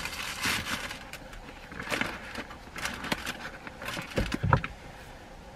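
Rustling and light knocks of small items being handled and packed away inside a parked car, with a dull thump about four and a half seconds in.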